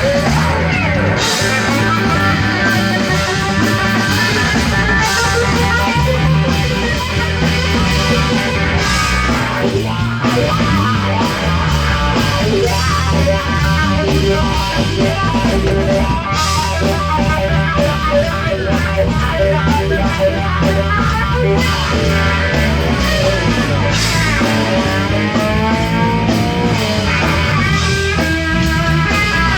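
A live band playing a rock tune without vocals, an electric guitar leading over bass and drums. Near the end the guitar bends its notes.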